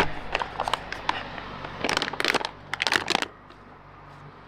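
Foil freeze-dried meal pouch crinkling and crackling as it is pulled open, in a run of rustling bursts over about three seconds.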